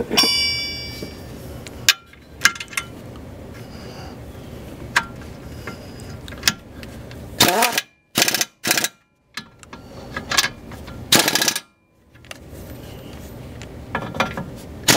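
Pneumatic impact wrench hammering in several short bursts, driving the 17 mm lower control arm ball joint bolts tight, with a brief whine from the gun at the start and a few knocks from handling the tool.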